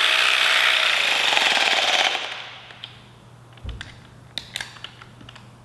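Jigsaw (Vybe) massage gun hammering rapidly at its fourth speed, pressed into muscle for a stall-force test. It dies away about two seconds in, followed by a few light clicks.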